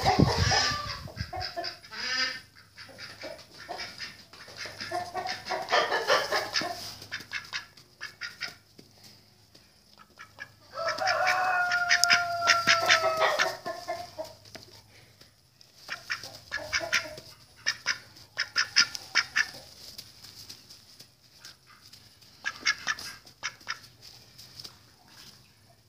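Farmyard fowl calling in short clucking calls, with one longer drawn-out call about eleven seconds in. Rustling and knocks from a handheld phone being moved about.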